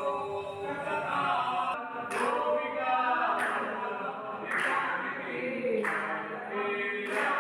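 Worshippers singing a Hindu aarti together, with a sharp beat about once every second and a quarter.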